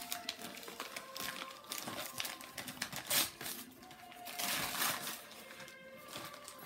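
Christmas wrapping paper crinkling and tearing as a present is unwrapped by hand, in irregular rustles, loudest a little after three seconds in and again around four and a half to five seconds in.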